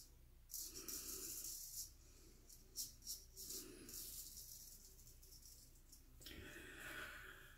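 Gold Monkey straight razor scraping through lathered stubble on the cheek in several short, faint, scratchy strokes, on the third pass of a wet shave.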